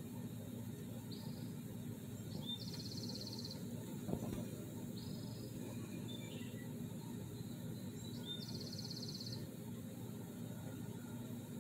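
Outdoor pond ambience: a steady low background hum with short, high-pitched buzzy trills every couple of seconds, two of them longer and pulsing. A single soft knock about four seconds in.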